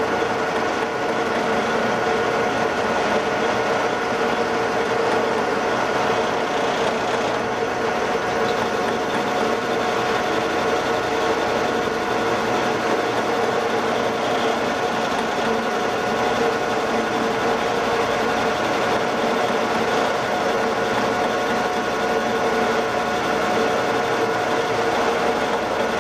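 Metal lathe running at a constant speed while a boring bar takes a light cut inside a steel bore: a steady running noise with a constant whine of several fixed pitches.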